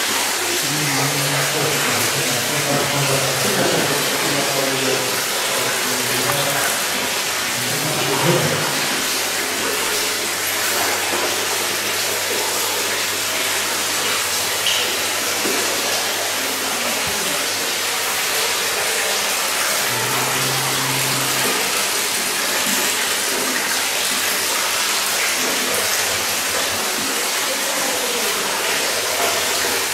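Steady rush of running water, with faint voices now and then underneath.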